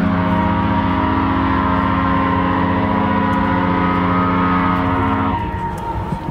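Ship's horn giving one long, steady blast of about five seconds, sounded as the ship casts off, then dying away.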